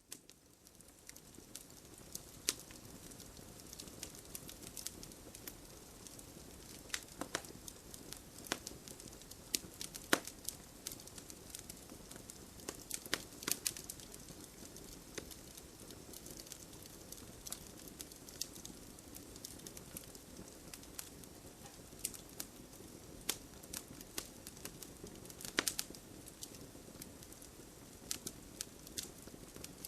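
Campfire crackling: a steady low rush of burning with frequent irregular sharp pops and snaps.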